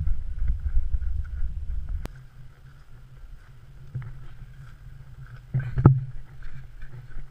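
Wind and handling rumble on a moving action camera's microphone, heaviest in the first two seconds. There is a sharp click about two seconds in and a few dull thumps near the end.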